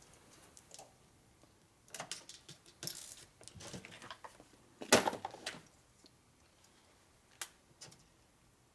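Small metal hardware and hand tools being handled on a workbench: scattered light clicks and clinks, with one sharper knock about five seconds in.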